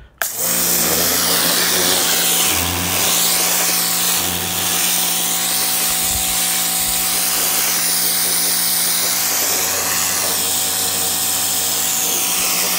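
Hart 2000 PSI electric pressure washer switching on and running steadily: a motor-pump hum with a hiss on top that rises and falls.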